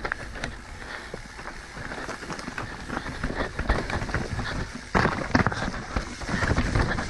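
Mountain bike descending a rocky technical trail: tyres crunching over dirt and rock while the bike rattles with many short clicks and knocks. It gets louder about five seconds in.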